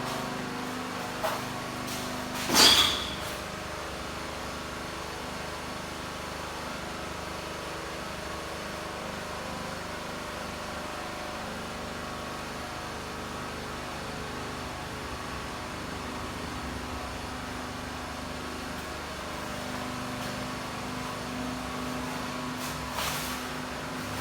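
A steady mechanical hum, like an engine or motor running, with a loud sharp knock about two and a half seconds in and a fainter one near the end.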